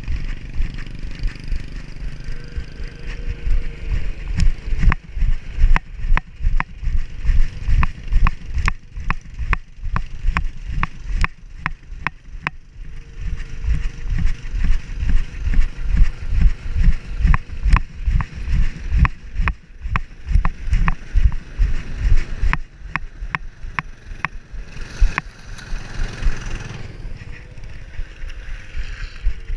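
Rhythmic low thumps and sharp clicks from a GoPro mounted on a moving dog, about two to three a second, the jolting of the dog's gait carried through the camera mount. A brief rushing noise comes near the end.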